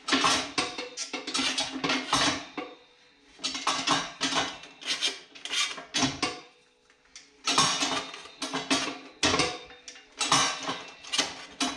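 Sheet metal clattering and banging in repeated irregular bursts, each about half a second long, with short pauses between them.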